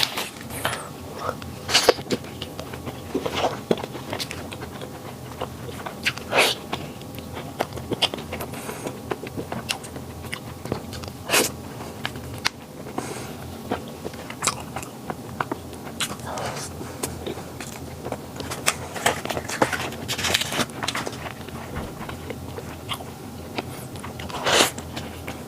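Someone biting into and chewing flaky pastry close to the microphone: a run of crisp crackles, with a few louder crunches spaced several seconds apart.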